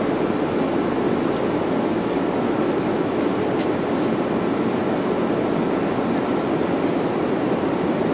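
Steady cabin noise inside a Boeing 787 Dreamliner: an even rush of airflow and engine sound, with a few faint ticks.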